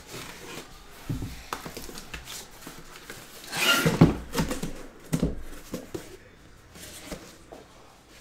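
A taped cardboard shipping case being opened by hand: a small blade cutting the packing tape, then cardboard scraping and knocking as the case is handled and the boxes inside are pulled out. A loud rasping tear comes about three and a half seconds in, followed by a few thumps.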